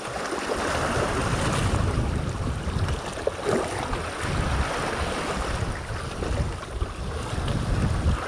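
Sea waves washing on the shore, with wind buffeting the microphone in gusts.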